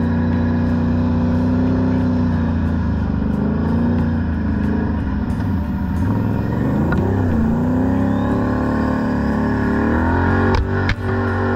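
Quad engine running under way on a dirt trail, its pitch dipping and rising through the middle as the throttle is worked. A few sharp knocks come near the end.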